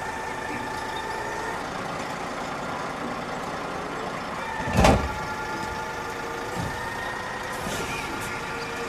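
Automated side-loader garbage truck running, with a steady whine over the engine as its hydraulic arm reaches for and lifts a wheeled trash cart. A single loud clunk comes about halfway through.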